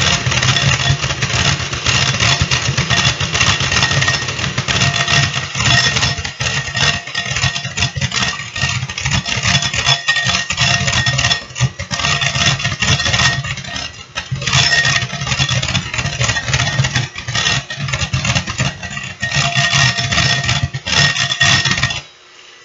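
Electric hand mixer running, its beaters whipping heavy cream in a glass bowl as the cream thickens toward stiff peaks. The motor cuts off near the end.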